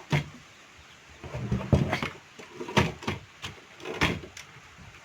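Vintage Godrej manual typewriter clacking: about five sharp mechanical strikes, irregularly spaced, as its mechanism is worked.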